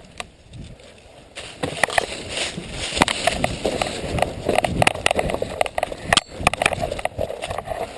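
Irregular crunching and rustling of a player moving through dry leaves and brush, starting about a second and a half in and running on as a dense crackle.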